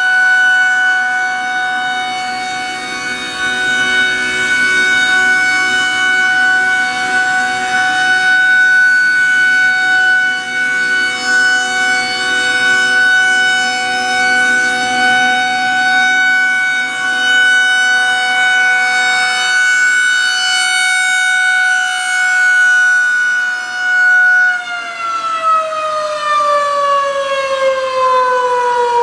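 Federal Signal 2001-130 rotating outdoor warning siren sounding a steady single tone, loud, swelling and fading as it turns. About 24 seconds in, it starts winding down, the pitch falling steadily.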